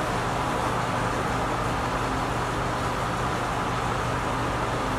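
Steady background noise, an even hiss with a low hum, with no distinct events.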